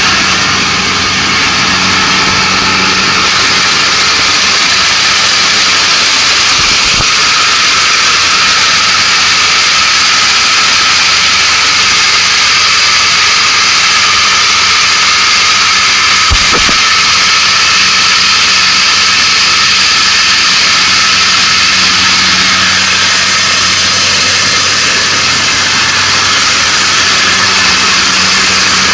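Kubota ARN460 crawler combine harvester running steadily at close range while cutting and threshing lodged rice: a loud, constant engine and machinery drone with a strong hiss, and two faint low knocks about a third and halfway through.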